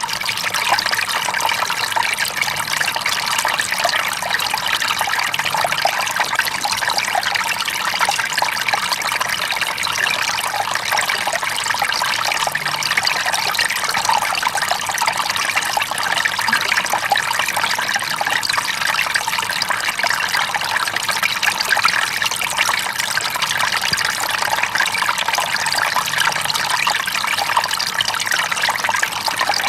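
Small waterfall: water splashing and trickling over rocks in a steady, continuous rush.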